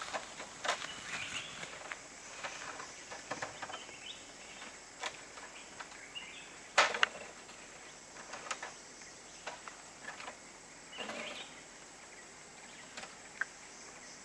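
Forest ambience with a steady high hiss of insects, broken by scattered knocks and rustles. The loudest is a sharp knock about seven seconds in.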